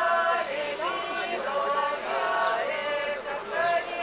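A women's folk ensemble singing a Lithuanian folk song a cappella, several voices together on long held notes that slide from pitch to pitch, in short phrases.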